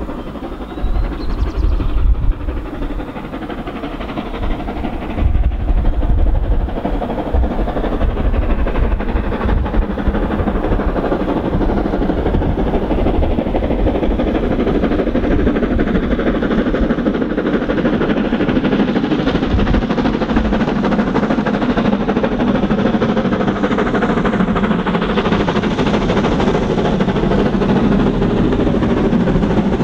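Steam locomotive hauling a train of coaches approaching under steam, its running noise growing steadily louder as it nears.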